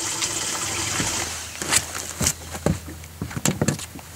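A hooked bass splashing at the water's surface beside the boat in a quick run of sharp, separate splashes, after about a second of steady running water.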